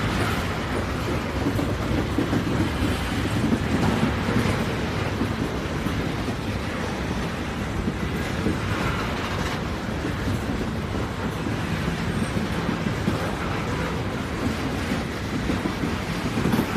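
A train running on its track: a steady rumble of wheels and track noise with faint scattered clicks, and no whistle.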